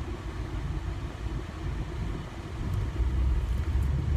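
Steady low rumble with no clear pitch, growing louder about three seconds in.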